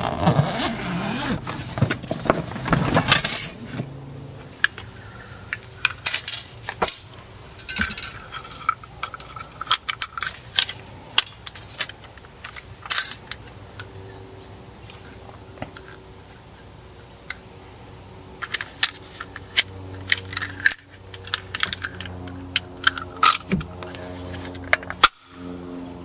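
Light metal clinks, rattles and knocks of gear being handled: many separate sharp strikes at irregular intervals.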